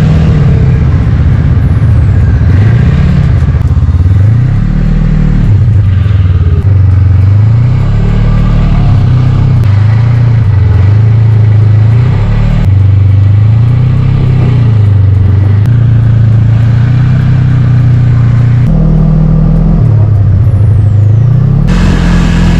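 Snowmobile engine running loud and close, its pitch rising and falling again and again as the throttle is opened and eased off during the ride.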